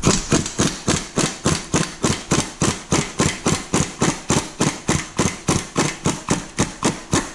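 Power impact wrench running in reverse on a 13 mm socket and long extension, hammering a catalytic converter flange bolt loose in an even train of sharp knocks, about four a second.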